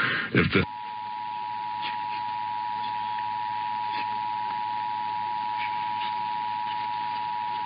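Emergency Alert System attention signal: the two-tone alert, two steady tones sounding together at a constant level. It starts just under a second in, right after the end of a synthesized voice message.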